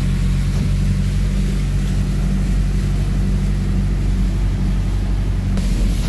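A vehicle engine running steadily with a low drone, over an even wash of water noise as it moves along a flooded road.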